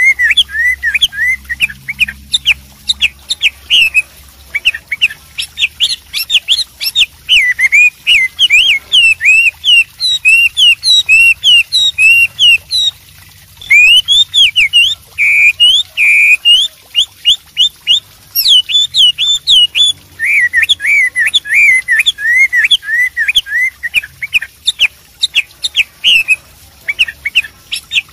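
Chinese hwamei singing: a long, loud run of varied whistled phrases made of quick rising and falling notes, broken by a short pause about 13 seconds in and another near 20 seconds.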